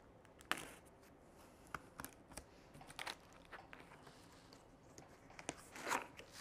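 Sealed cardboard box being opened by hand: packing tape pulled and torn and cardboard flaps handled, in scattered clicks and short scrapes. The loudest is a longer tearing stroke near the end.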